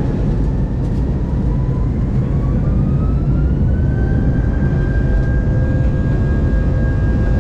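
Airbus A319 jet engines spooling up for take-off: a loud, steady low rumble with a whine that rises in pitch about two seconds in, then holds steady.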